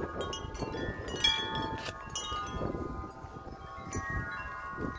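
Wind chimes struck hard and irregularly by strong, gusting wind, many overlapping tones ringing on, with wind rumbling underneath.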